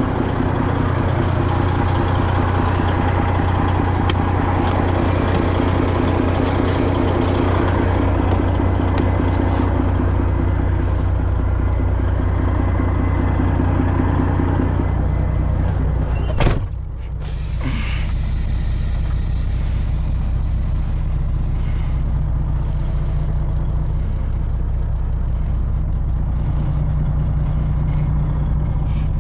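Semi truck's diesel engine running steadily while maneuvering into a dock. Just past halfway there is a single sharp sound, after which the higher part of the noise drops away for a moment and the engine runs on.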